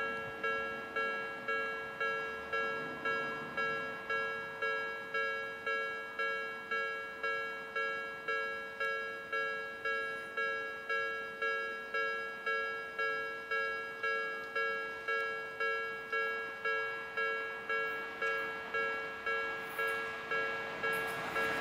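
Japanese railway level-crossing warning bell ringing steadily, about one and a half strikes a second, each ring fading before the next. A train's noise begins to rise near the end.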